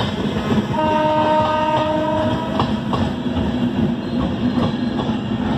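Air-conditioned passenger coaches of an Indian Railways express rolling past at close range, their wheels clacking repeatedly over rail joints in a steady rumble. About a second in, a train horn blows one steady note for about a second and a half.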